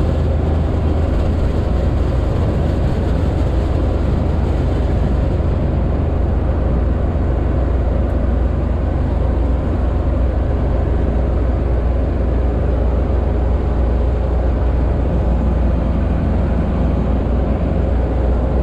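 Sherp ATV's diesel engine running steadily as the vehicle drives across lake ice, a deep, even drone with a rushing noise over it.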